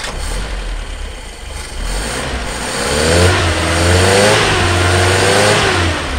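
Mitsubishi Lancer box-type car's carbureted engine running on its freshly restored carburetor just after starting, the revs rising about halfway through and easing back down near the end.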